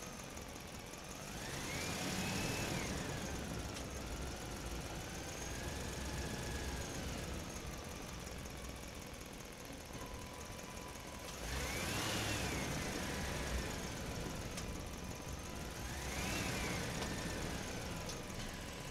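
A motor vehicle engine swells and fades three times, its pitch rising and then dropping each time, over a steady background rumble.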